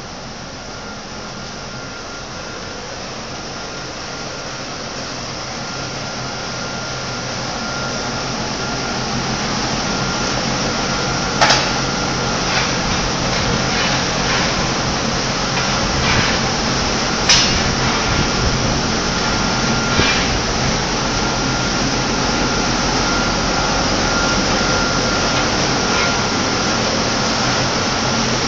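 Tissue paper making machinery running with a steady whirring noise and a faint constant hum, growing louder over the first ten seconds or so. A few sharp mechanical clacks stand out in the middle.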